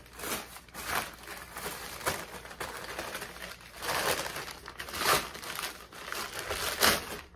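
Wrapping crinkling and rustling in irregular bursts as a wrapped piece of a new dog harness set is unwrapped by hand.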